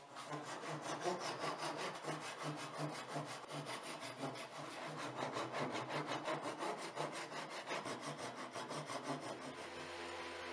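Japanese ryoba pull saw cutting through protruding wooden splines at a box corner, trimming them flush with quick, even back-and-forth strokes. Near the end the sawing stops and an electric sander starts with a steady hum.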